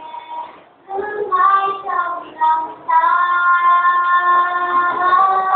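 A girl's voice singing alone, without instruments: a short phrase of notes, then one long note held for about two and a half seconds near the end.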